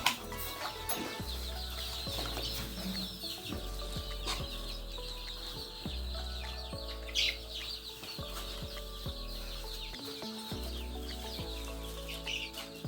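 A flock of 30-day-old Sonali chickens clucking and chirping, over background music with held chords that change every second or two.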